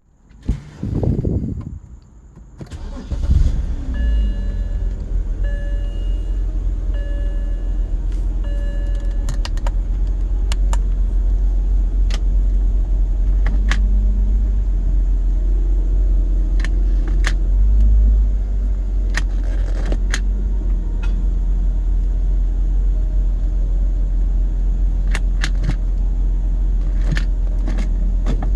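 BMW E90's engine starting about three seconds in and then idling steadily. A dashboard warning chime sounds four times in a row soon after the start, and light clicks come through now and then.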